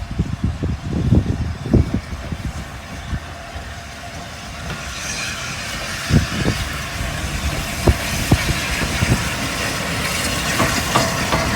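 A train drawing closer: a rushing running noise that grows steadily louder through the second half, with a few sharp clanks. Low wind buffeting on the microphone in the first couple of seconds.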